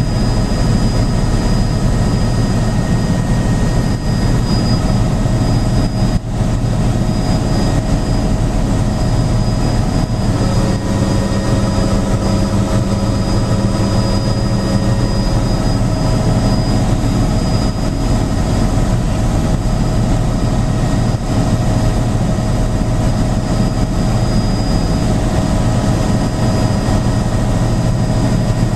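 Helicopter in flight heard from inside the cabin: the steady, loud drone of rotor and engine, with a thin high whine held steady over it.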